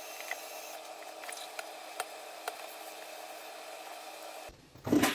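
Caulk being squeezed from a tube along the base of a toilet: a faint, steady squishing hiss with a few light clicks. Near the end it drops away, and a much louder sound comes in.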